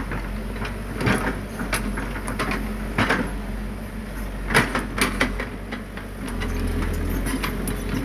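Caterpillar 312C hydraulic excavator's diesel engine running steadily, with repeated sharp knocks and clatter of the steel bucket and rocks as it works the soil, the loudest about one, three and four and a half seconds in.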